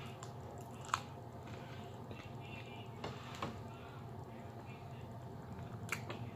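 Close-up eating sounds: chewing and sucking food off the fingers, with sharp mouth clicks about a second in and near the end, over a steady low hum.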